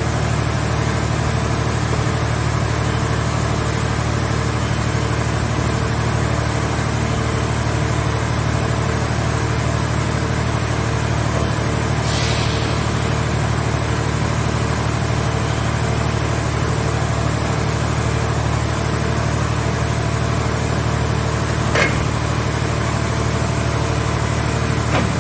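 Car scrap baler's hydraulic power unit running steadily with a constant hum, with a short hiss about halfway through and a single sharp clank near the end.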